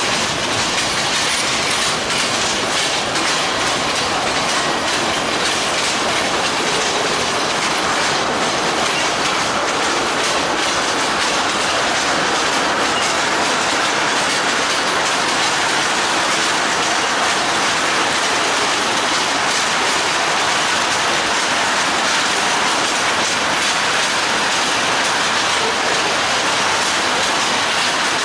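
Freight train cars rolling past on the rails: steady wheel-on-rail noise with clickety-clack from the rail joints and some wheel squeal.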